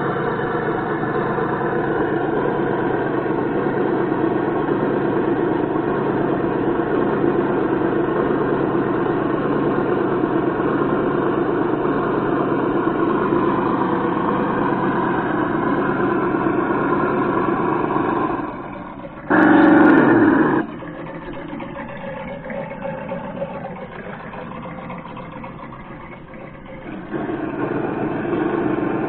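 Simulated engine sound from the Traxxas Summit RC truck's ESS sound box, running steadily as the truck crawls. About two-thirds in comes a loud blast of about a second that falls in pitch. The sound then drops to a quieter idle and picks up again near the end.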